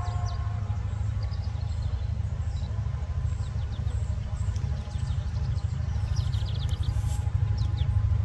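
Low, steady rumble of EMD diesel locomotive engines, growing a little louder near the end. Songbirds chirp several times over it.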